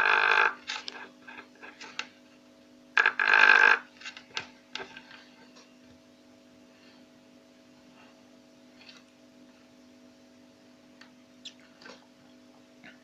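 Homemade 12-volt electric engraving pen arcing against a steel jaw harp as it burns a mark into it: a buzzing burst for about a second at the start and a shorter one about three seconds in. Light handling clicks follow, over a steady low hum.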